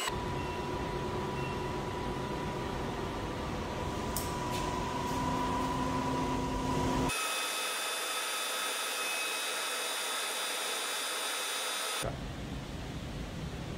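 Vertical milling machine running, its spindle turning a small drill bit down into a PVC tube held in the vise. The machine noise is steady, with a few steady tones, and changes abruptly about seven and again about twelve seconds in.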